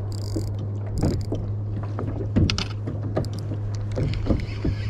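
Spinning reel being handled on a kayak: irregular sharp clicks and knocks from the reel and rod, about two a second, over a steady low hum.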